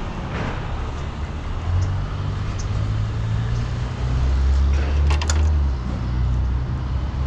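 1996 Toyota Corolla's 1.8 L four-cylinder (7A-FE) engine running with a cylinder 1 misfire. Its sound steps up twice, about two and four seconds in, and a few sharp clicks come around five seconds in.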